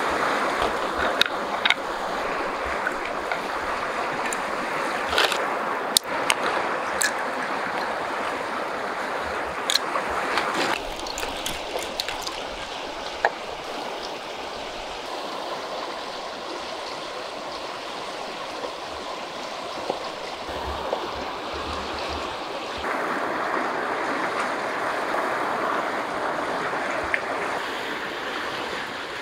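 River water rushing steadily, with a few sharp clicks and taps in the first ten seconds or so. The rush drops a little about a third of the way in and swells again later.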